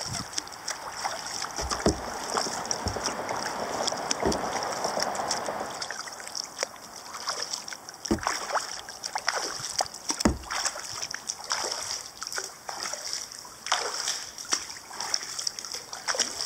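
Kayak paddle blades dipping and splashing in the water as the kayak is paddled along, with strokes every second or few and water dripping between them. A rushing noise runs through the first few seconds.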